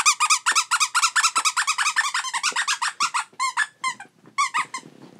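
Squeaky dog toy squeezed over and over in quick succession, about seven squeaks a second. The squeaks thin out after about three seconds and stop near the end.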